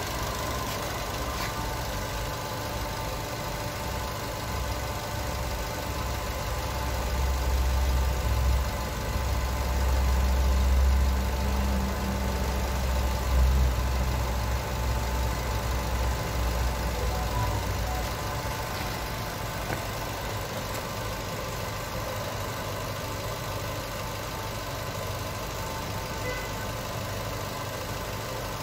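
A motor or engine running steadily with an even hum, joined by a heavier low rumble for several seconds in the middle.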